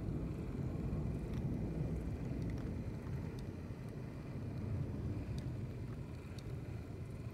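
Lematec brass HO-scale model of the SBB Ce 6/8 II 'Crocodile' electric locomotive running along the track: a steady low rumble of motor, gearing and wheels on rail, with a faint steady high whine and a few light ticks.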